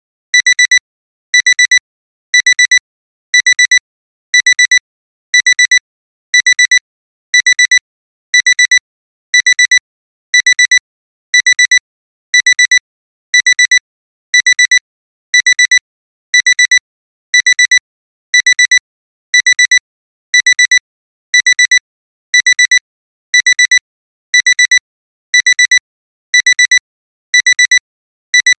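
Electronic alarm-clock beeping: quick high-pitched beep-beep pairs repeating about once a second without a break. This is the continuous end alarm signalling that the 26-minute timer has run out.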